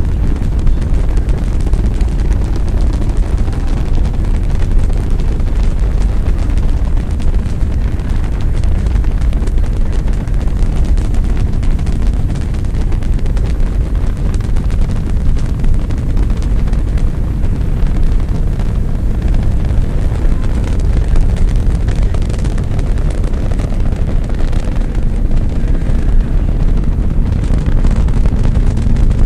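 The Saturn V's five F-1 first-stage engines during liftoff and climb: a loud, continuous rumble, heaviest in the low end, with no let-up.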